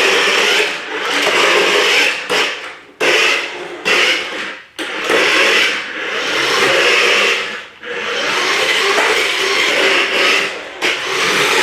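Remote-control toy car's electric motor and gears whirring in repeated bursts of throttle, with short pauses between them, as it is driven about.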